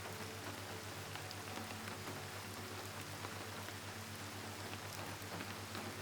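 Steady, gentle rain: an even hiss of rainfall with scattered drops pattering, over a low steady hum.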